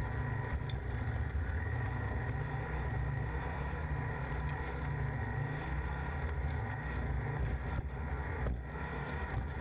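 Competition 4x4's engine running steadily under load, recorded onboard the car as it drives a rough forest rally stage, with two faint knocks near the end.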